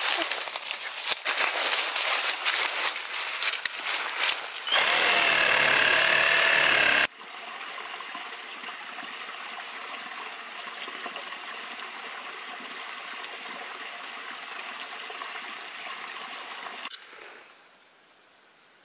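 A run of sharp crackles and clicks, then about two seconds of a loud, steady machine-like noise that cuts off suddenly. After it comes a steady wash of a small stream trickling over stones for about ten seconds, which drops away to quiet near the end.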